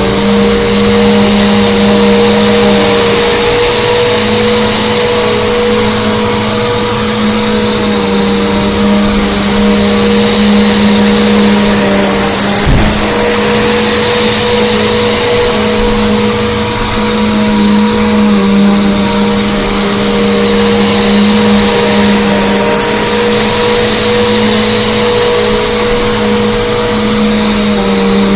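Bissell Big Green Commercial BGU1451T upright vacuum cleaner running steadily, a constant motor hum over the rush of airflow. A brief knock about halfway through.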